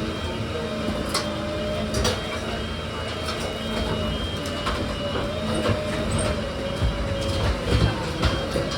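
A machine running steadily: a motor whine that wavers slightly in pitch, over a dense mechanical rumble, with scattered knocks and clicks.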